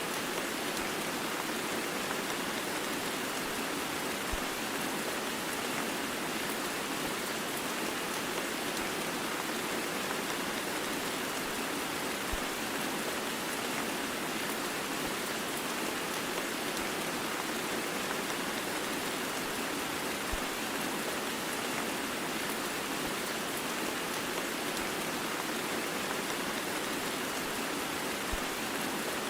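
Heavy rain mixed with white noise: a steady, even hiss of rainfall that does not change.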